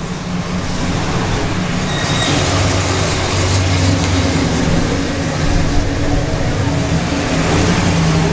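Engines of two classic American convertibles running as they roll slowly past one after the other, a steady low engine sound that is loudest in the middle.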